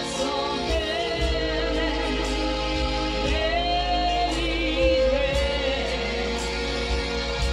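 A gospel worship song: a choir of voices singing together in sustained, wavering lines over instrumental backing with a steady low bass.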